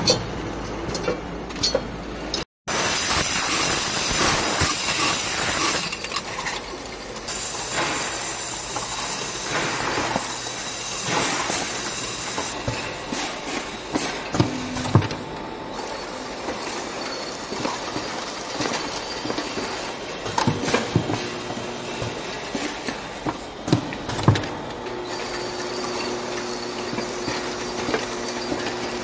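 Automatic jar filling and capping machinery running: a steady mechanical noise with frequent sharp clicks and knocks of the capping heads, pneumatic parts and glass jars on the conveyor.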